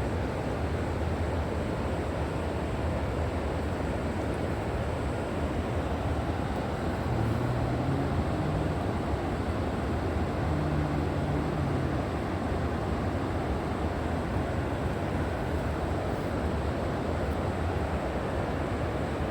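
River water rushing steadily, a dense rush heaviest in the low range. A faint low hum joins it for a few seconds around the middle.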